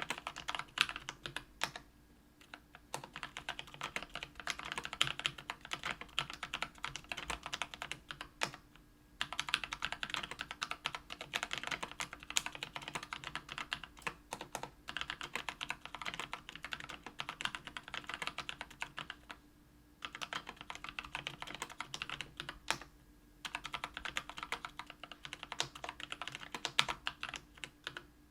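Continuous typing on a KBDfans Tofu 65% aluminium-plate keyboard with Kailh Brown 50 g tactile switches lubed with Krytox 205g0: dense runs of key clacks, broken by a few short pauses.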